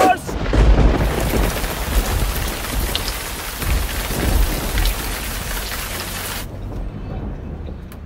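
Rain-and-thunder sound effect: a steady hiss of heavy rainfall with low rumbles of thunder about half a second in and again around four seconds, cutting off suddenly about six and a half seconds in.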